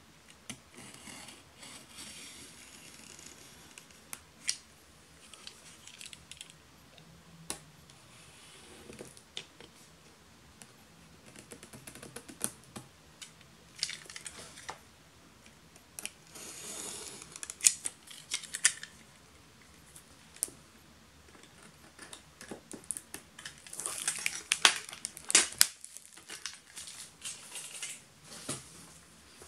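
Plastic shrink-wrap on a smartphone box being cut open and pulled off: irregular bursts of crinkling and scraping with sharp clicks, loudest and busiest near the end.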